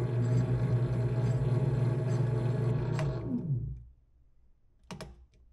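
Benchtop lathe running with a steady motor hum, then slowing with a falling pitch and stopping about three and a half seconds in. A sharp click comes just before it winds down, and a single knock sounds near the end.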